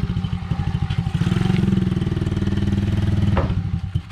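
Small vehicle engine running steadily, its firing pulses even, then fading out near the end.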